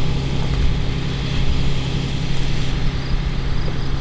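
Tractor diesel engine running steadily, a constant low hum with no change in speed.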